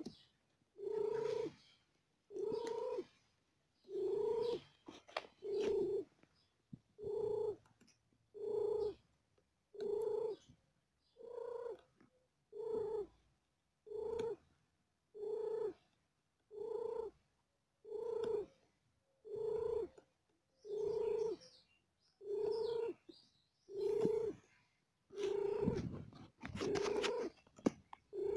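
Mother cat purring in regular pulses, about one every second and a half, while nursing her newborn kittens; the last few pulses are louder.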